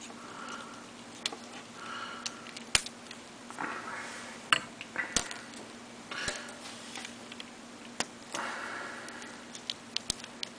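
Plastic gunpla parts of an HGUC Zaku I Sniper Type model being handled: a rifle worked into the figure's hand, giving a handful of sharp, scattered plastic clicks with soft rubbing and rustling between them, over a faint steady hum.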